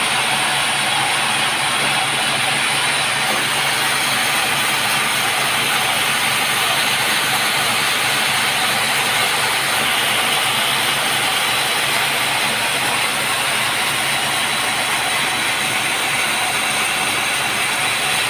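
Sawmill saw running with a constant, unbroken noise.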